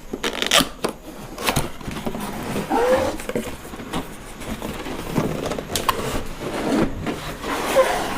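Cardboard box being opened and its packaging handled: rustling and scraping, with several sharp knocks and clicks at uneven intervals.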